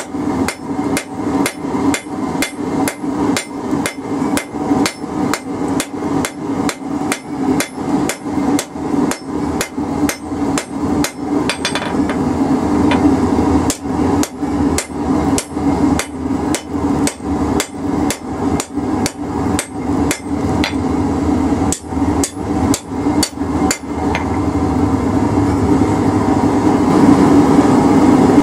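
A blacksmith's hammer striking hot steel on an anvil in regular blows, about two to three a second, using the cross peen to spread the bar out for width.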